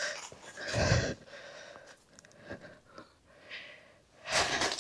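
A person breathing out close to the microphone, two audible breaths about a second in and near the end, with a few faint clicks between, as she balances on a fallen tree.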